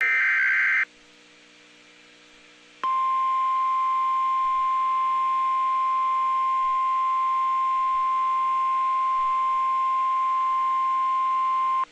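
Emergency alert on NOAA Weather Radio announcing a severe thunderstorm warning. It opens with the tail of a buzzy SAME data header burst, then a pause of about two seconds. Then comes the steady single-pitch 1050 Hz warning alarm tone, held for about nine seconds before it cuts off suddenly.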